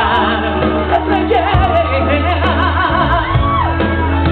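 Live band music with a lead singer singing into a microphone, a wavering vocal line over a strong, steady bass.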